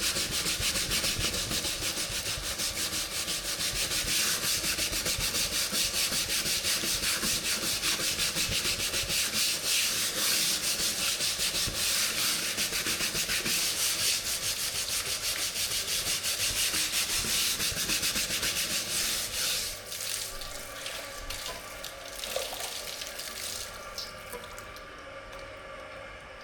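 Rapid back-and-forth scrubbing of a surface, a dense run of rubbing strokes that stops about twenty seconds in, leaving lighter scattered handling sounds.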